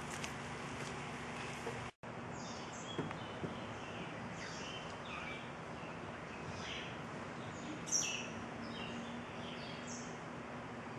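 Small birds giving short, falling chirps, about one or two a second, over a steady outdoor background hiss. The sound cuts out for an instant about two seconds in.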